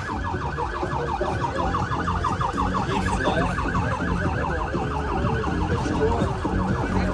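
Police siren sounding a fast yelp, rapid rising sweeps about eight a second, with a vehicle engine running low underneath.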